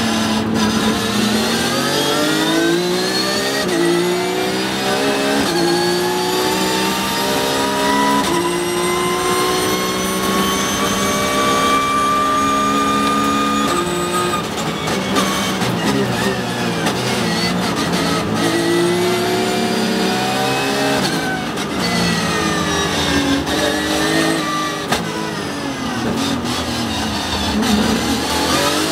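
Porsche 911 GT3 Cup race car's flat-six engine at full throttle, heard from inside the cockpit. Its pitch climbs in quick steps with each upshift for about the first half, then holds one long rising pull in top gear. It then brakes hard, with downshifts and short sharp cracks, and revs rise and fall through the corners before it picks up again near the end.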